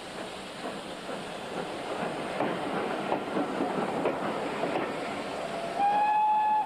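A train of passenger coaches running past on the adjacent track, wheels clattering over the rail joints. Near the end a locomotive whistle sounds, a single held note that steps up in pitch as it opens.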